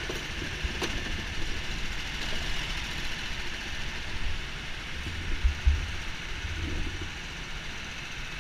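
Go-karts idling and creeping forward in a pit lane: a steady mechanical hum and hiss, with a few low rumbles about five to seven seconds in.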